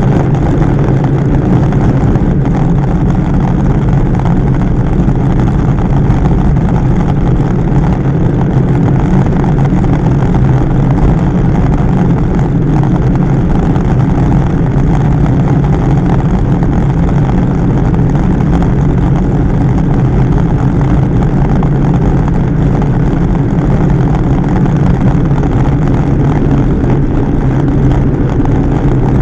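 Wind rushing over the microphone of a camera mounted on a road bicycle moving at about 35 km/h, a loud, steady low rumble.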